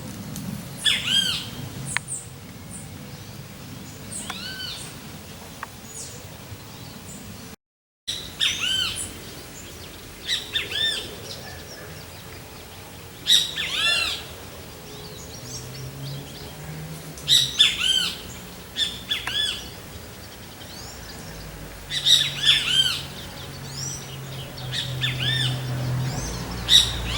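Great kiskadee giving its loud, harsh calls in repeated bursts every few seconds. The calls drop out for an instant just before a third of the way through, and a low hum rises beneath them in the second half.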